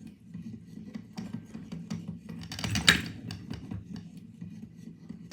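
Wooden automaton made from an old baby's rattle being worked: its wooden mechanism clicks and scrapes steadily, with a louder clack about three seconds in.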